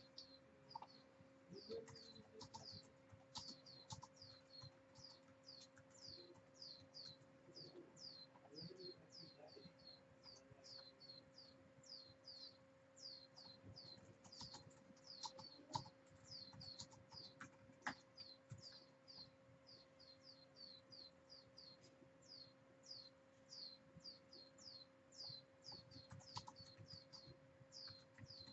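A bird chirping over and over, faint and quick, about three short high chirps a second, each sliding down in pitch, over a faint steady hum.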